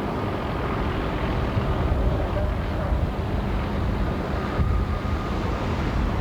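Steady rumbling drone of a news helicopter's engine and rotor, heard from on board, with a constant low hum.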